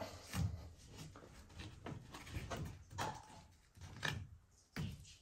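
Hand scraper blade scraping and prying at the caulked join between a wooden trim and the ceiling, in a series of irregular scrapes and knocks.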